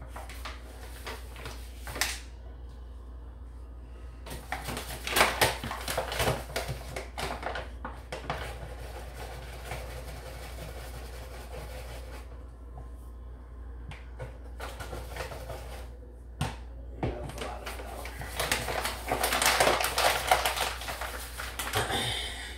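A bag of flour rustling and crinkling as it is handled and shaken, in two bouts of rapid crackling, one about five seconds in and one near the end, with light clicks and knocks between.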